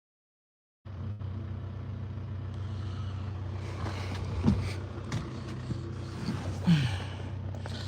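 A vehicle engine idling steadily with an even low hum, starting after a second of silence. Two brief sounds falling in pitch come partway through.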